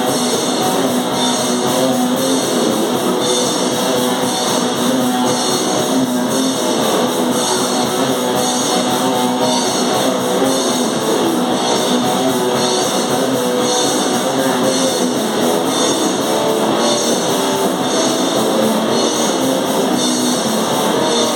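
A noise metal band playing live: distorted electric guitars over drums, a dense, loud wall of sound without a break.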